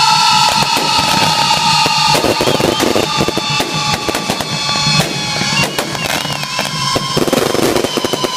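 Ground-level fireworks crackling with many sharp cracks over steady, high whistling tones, some of which waver up and down, with drumming beneath.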